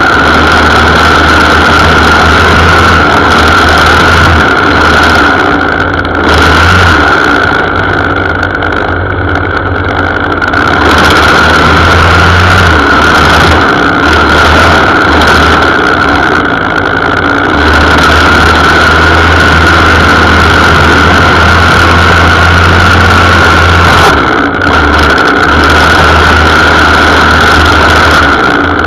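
A string trimmer (weed eater) engine runs steadily under load as the line cuts grass along the base of a brick wall. The engine sound eases slightly for a few seconds about a quarter of the way in.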